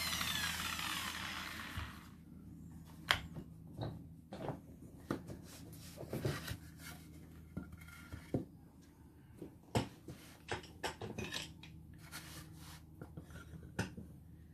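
A handheld power tool winding down, its whine falling in pitch and fading over the first two seconds. Then come scattered light knocks and clacks, as of boards and tools being handled on a workbench.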